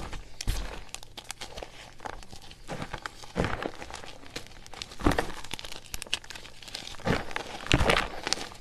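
Gym chalk being squeezed and crumbled by hand: a continuous run of fine, dry crackling with louder crunches every second or two.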